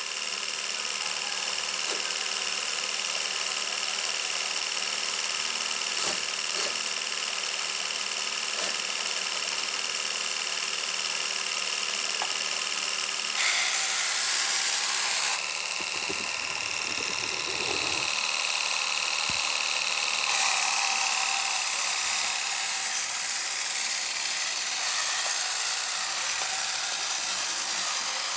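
Small high-speed electric motor running with a steady high-pitched whine. Its pitch shifts and it briefly gets louder about halfway through, then it shifts again a few seconds later.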